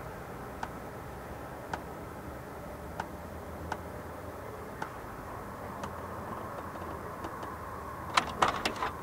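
Steady night-time outdoor drone and hiss with a faint mid-pitched hum running through it, the 'strange sound' the uploader hears with the fog. Sharp ticks come about once a second, and a quick run of louder clicks comes near the end.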